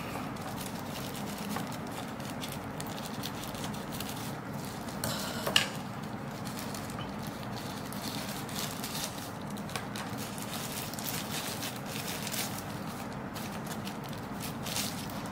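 Thin paper and tissue wrapping rustling and crinkling in the hands as small accessories are unwrapped, with a sharper crackle about five and a half seconds in.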